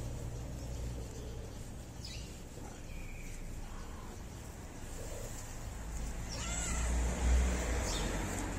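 Street cat meowing a few times, faint short calls early on and a clearer, longer meow about six and a half seconds in.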